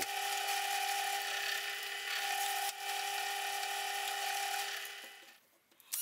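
Bench drill press running steadily with a small bit, drilling pilot holes through wood, with a constant hum and a hiss above it. It fades out about five seconds in.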